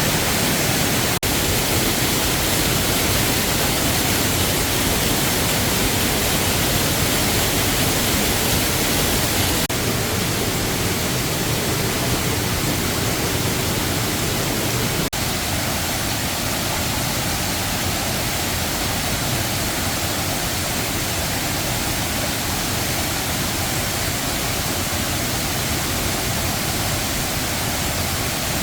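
Waterfall with steady rushing water, a dense even hiss-and-rumble across all pitches. Its tone shifts slightly about ten and fifteen seconds in.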